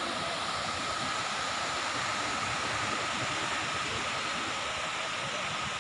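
Steady, even wash of sea surf on a sandy beach, with no single wave standing out.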